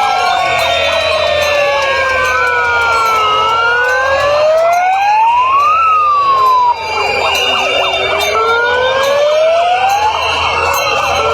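Several sirens wailing at once, their overlapping pitches sliding slowly down and back up.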